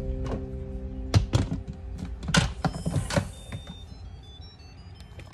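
An Instant Pot pressure cooker lid is set on and turned shut with several clunks, clicks and a brief scraping slide. The cooker then plays its short tinkling electronic jingle of quick high notes, the signal that the lid has locked.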